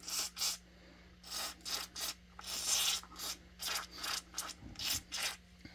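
WD-40 aerosol can sprayed in a rapid series of short hissing squirts, one longer squirt about two and a half seconds in, working penetrating oil into a corroded recoil starter.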